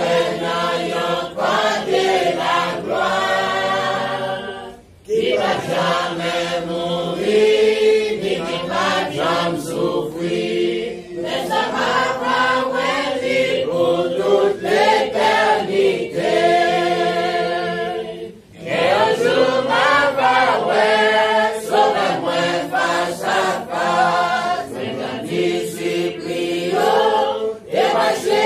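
Congregation singing a worship song together, many voices in long phrases, breaking off briefly twice for breath.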